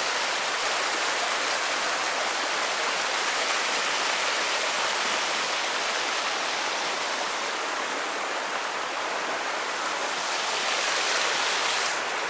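River water rushing, a steady even hiss.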